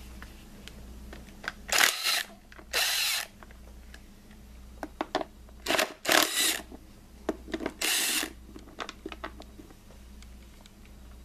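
A handheld power tool spins in short bursts, about five of them, each around half a second long, backing out the 10 mm bolts of a Honda D16 engine's upper timing belt cover. Light clicks of metal parts being handled come between the bursts.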